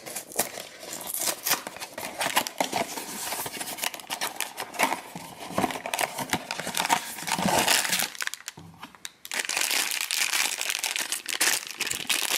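Packaging of a Funko Mystery Minis blind box being torn open and crinkled by hand: continuous crackling and rustling with tearing, pausing briefly a little after the middle.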